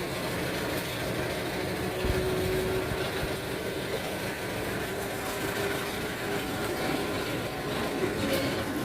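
GE U18C (CC201) diesel-electric locomotive's V8 diesel engine running steadily under load as the train accelerates, stepping up from throttle notch 5 to notch 6 about five seconds in, with some rolling noise from the wheels.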